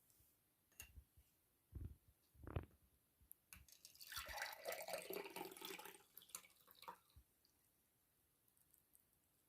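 A few light knocks, then liquid pouring or splashing for about two seconds, starting about four seconds in.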